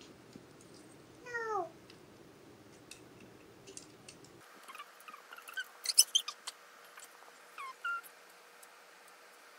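Small plastic building-block pieces clicking and snapping as they are handled and pressed together, loudest in a quick cluster a little past the middle. A short falling cry comes about a second in, and brief high squeaks follow near the end.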